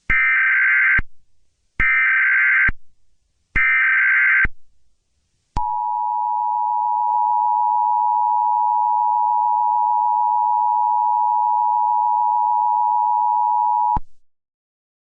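Emergency Alert System SAME header: three one-second bursts of data tones, then the EAS attention signal, a steady two-tone beep held for about eight seconds that cuts off abruptly.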